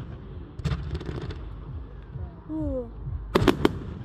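Fireworks exploding: one sharp bang about a second in, then three sharp bangs in quick succession near the end, over a steady low background of crowd noise.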